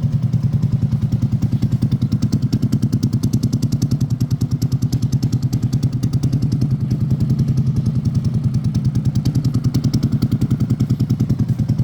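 Motorcycle with a modified loud aftermarket exhaust (a 'cement pipe') idling, a loud, steady, rapid putter.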